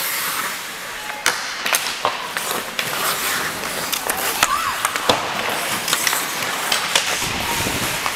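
Ice hockey skate blades scraping and carving across the ice, with sharp clacks of sticks striking the puck and the ice scattered throughout.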